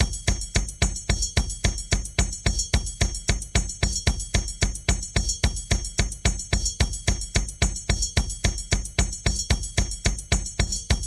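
Drum loop: a steady, even beat of drum-kit hits, about four to five strokes a second, with heavy bass-drum thumps.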